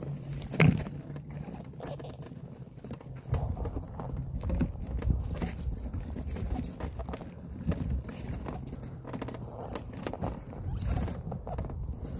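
Noise of travel down a dry dirt trail: an uneven low rumble with many scattered clicks and knocks, the sharpest about half a second in.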